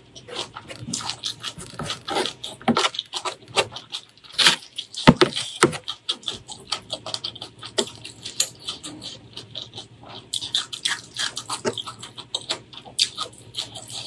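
Close-miked eating sounds: a mouthful of rice with spicy mustard greens chewed with the mouth open, a dense, irregular run of sharp mouth clicks and smacks.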